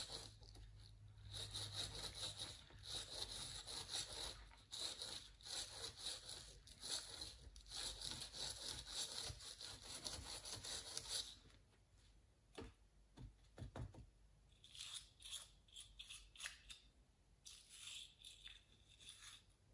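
Toothbrush bristles scrubbing the blades of a MacBook Air cooling fan in quick repeated strokes, which stop about eleven seconds in. After that come only a few faint, brief scrapes.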